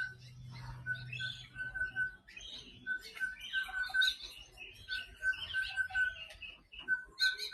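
Several birds chirping and calling, with one bird giving a short note at a steady pitch over and over in quick runs, several notes a second.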